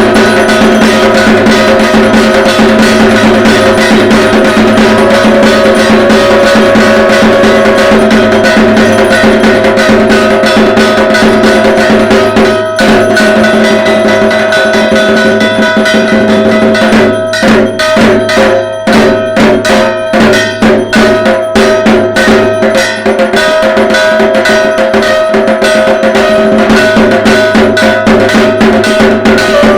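Dhak, the Bengali barrel drum of Durga Puja, played in a fast, dense rhythm with struck metal percussion ringing steadily over it. From about 17 to 23 seconds in, the strokes come more separately before the dense playing resumes.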